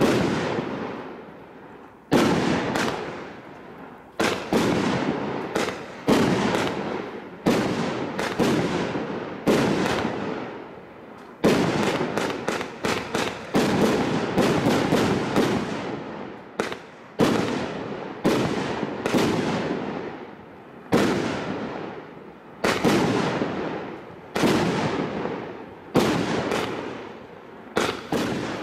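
Govenor's Apprentice 48-shot 1.3G firework barrage cake firing shot after shot, about one a second and sometimes two close together. Each shot is a sharp bang that fades away over about a second.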